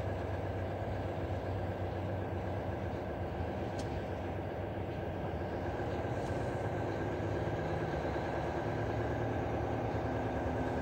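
Steady in-cab drone of a Volvo truck's diesel engine running while the truck creeps in slow traffic, under a constant hiss from heavy rain and wet road.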